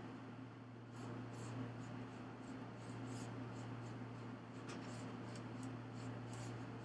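Faint steady low hum under light, irregular scratching ticks.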